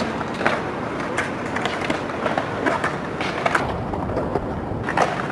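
Hard urethane inline skate wheels (GoJoe 65 mm on Salomon ST9 skates) rolling over smooth concrete, a steady rumble broken by several sharp clacks of the skates striking the ground.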